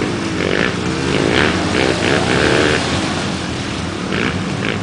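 Off-road 4x4 engines running at idle, with an engine revving up and down between about half a second and three seconds in.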